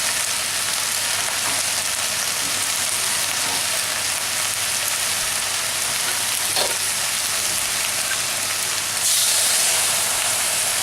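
Browned beef and pork mince with passata sizzling steadily in a hot pan. About nine seconds in the hiss grows louder and brighter for a second or so.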